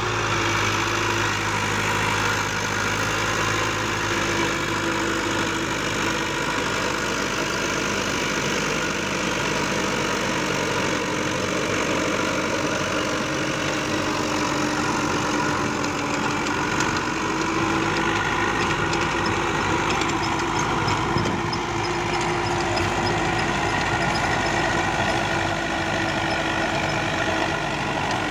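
Tractor diesel engine running steadily under load, driving a rear-mounted rotavator whose rotor churns through the soil.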